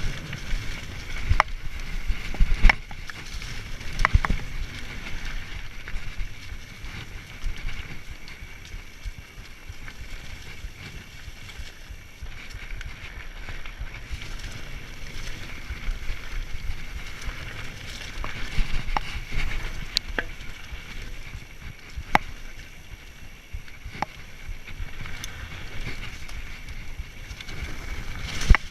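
A steady outdoor rumble and hiss, with a fluttering low end and sharp clicks every few seconds.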